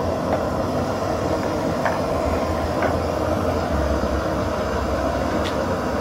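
MSR PocketRocket canister stove burning steadily, its burner hissing under a pot of water being heated, with a few faint clicks.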